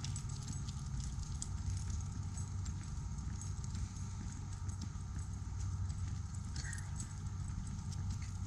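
Footsteps of a person walking on an asphalt path, an irregular run of light taps and scuffs over a steady low rumble.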